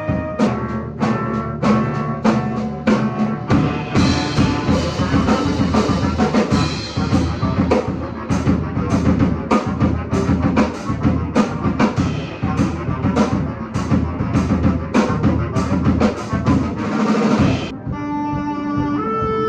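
Heavy metal piece played by a bass clarinet ensemble and drum kit: rapid, steady drum hits under sustained low clarinet notes. About four seconds in, cymbals join and the sound thickens. Just before the end the band breaks off abruptly, leaving a few held notes.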